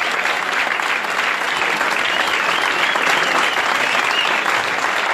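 Audience applauding steadily after a live band's song, with a wavering high tone over the clapping for about two seconds in the middle.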